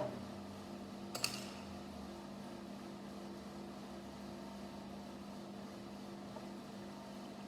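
Plastic Lego bricks clicking and clattering briefly about a second in, over a steady low electrical hum.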